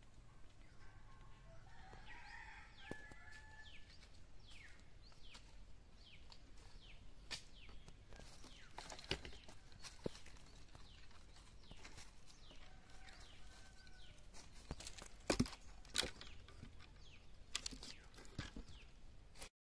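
Dry dead branches and twigs snapping and cracking as they are pulled and broken by hand. The cracks come scattered and irregular, with the sharpest few about three quarters of the way through.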